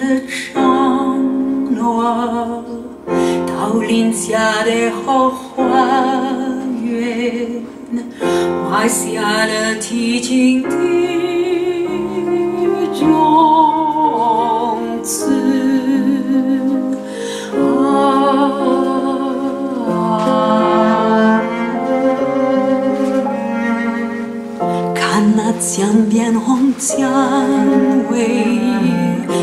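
Recorded duo of cello and voice with piano, played back loudly over Salk floor-standing hi-fi loudspeakers. The cello and singing lines waver in pitch with vibrato.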